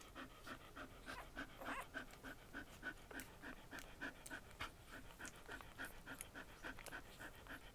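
Old English Sheepdog panting faintly and steadily, about three to four quick breaths a second, shortly after whelping.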